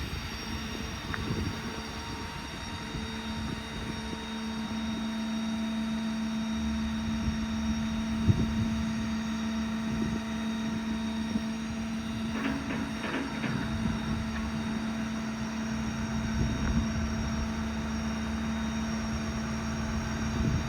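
Stellar 7621 truck crane's hydraulics running as the boom is worked, a steady whine under the truck's diesel engine. The whine gets stronger about four seconds in, and there are a few short knocks and clanks around the middle.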